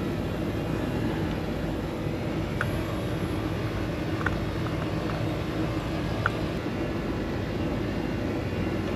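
A steady, loud mechanical drone with a low hum, like running machinery, with a few faint ticks about 2.5, 4.5 and 6 seconds in.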